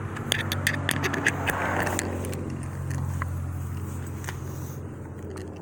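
Light metallic clicks and taps of a screwdriver and small parts on a steering column, most of them in the first half, over a steady low hum that cuts off near the end.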